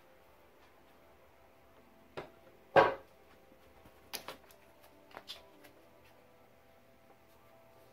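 A cat playing with a small toy mouse: a few short knocks and bumps, the loudest about three seconds in, then two quick pairs, over a faint steady hum.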